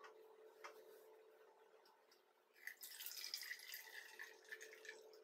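Vinegar poured from a small glass jar into a plastic measuring cup: a faint trickling splash that starts about two and a half seconds in and lasts a couple of seconds. It is preceded by two light taps as the jar is handled.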